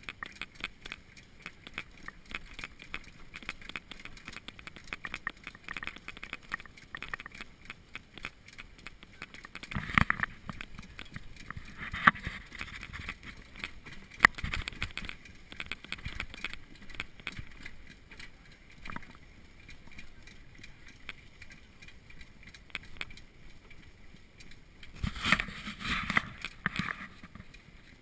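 Trotting horse pulling a jog cart over a gravel road: a steady clatter of hooves, wheels and rattling cart frame and harness, with a few louder knocks about ten to fourteen seconds in and a louder spell of rattling near the end.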